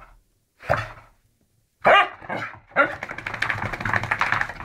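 Dog barking in an excited post-bath frenzy: a short bark about a second in, a louder one near two seconds, then a longer rough, growly run of barking.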